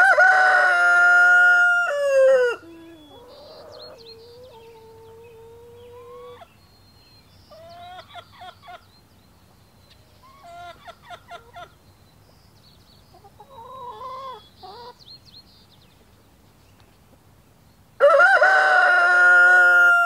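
Rooster crowing loudly twice, once at the start and again near the end, each crow lasting about two and a half seconds. Between the crows the flock of chickens makes fainter, short clucking calls.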